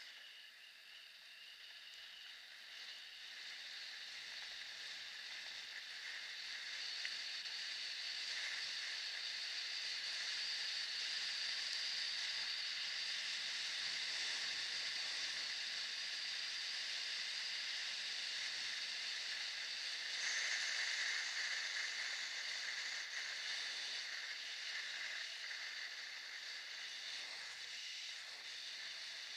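Kick scooter's wheels rolling on damp asphalt, a steady hiss heard from a camera on the scooter. It grows louder over the first ten seconds and swells again about twenty seconds in.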